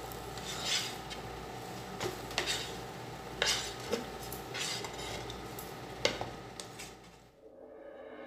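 Metal spoon scraping and clinking against a nonstick frying pan while stirring fried rice, in irregular strokes over a faint steady sizzle. The sound fades out about seven seconds in.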